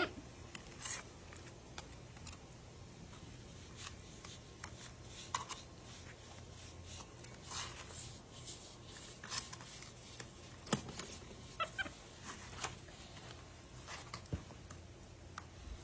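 Scattered light clicks, taps and scrapes of a utensil stirring patching compound in a plastic bowl, with gloved hands smoothing the compound onto a concrete goose statue, over a low steady hum.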